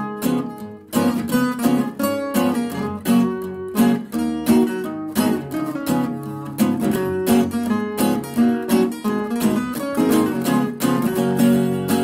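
Background music led by a strummed acoustic guitar, playing a steady rhythmic strum.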